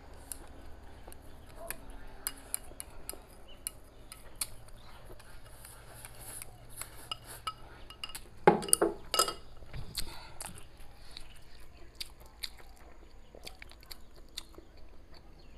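Close eating sounds: chopsticks clicking against a ceramic rice bowl as rice is shovelled into the mouth, and chewing, with a cluster of louder clunks about eight and a half seconds in.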